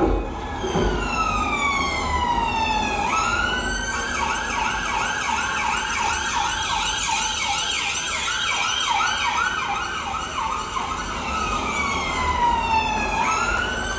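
Electronic siren sound effect. It starts with a slow wail falling in pitch and then sweeping back up. From about four seconds in it switches to a fast warbling yelp, about three cycles a second, then returns to the slow falling wail and rises again near the end.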